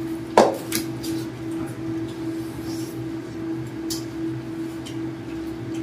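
Tableware clatter at a meal: a sharp clink of a serving spoon against a metal rice pot about half a second in, then a few lighter clinks of dishes. A steady low hum runs underneath.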